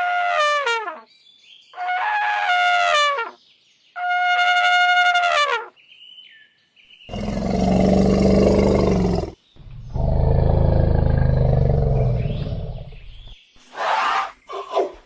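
Elephant trumpeting: three loud blaring calls, each falling in pitch over about a second, then two longer, deeper roars, with shorter trumpet calls near the end.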